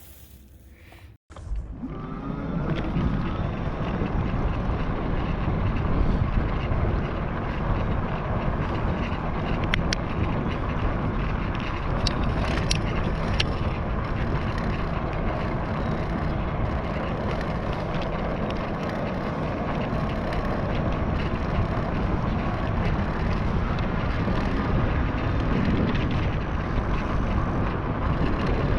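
Steady rush of wind on a handlebar-mounted action camera's microphone, mixed with the fat tyres of an NCM Aspen e-bike rolling over the ground as it is ridden; the noise comes in about two seconds in after a brief quiet.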